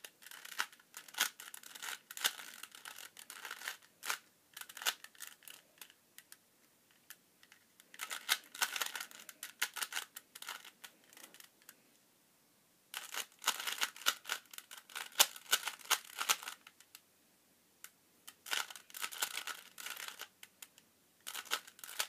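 Plastic 3x3 Rubik's Cube being turned by hand during a solve: rapid clicking and clacking of the layers rotating, in bursts separated by short pauses.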